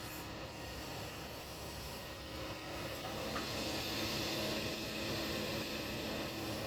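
Kobelco excavator running with a steady engine hum and a hiss, growing a little louder about three seconds in.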